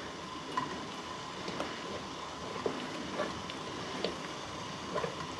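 A spoon stirring thick carp roe in a steel bowl over simmering water (a steam bath), with scattered light clicks of the spoon against the bowl over a steady hiss.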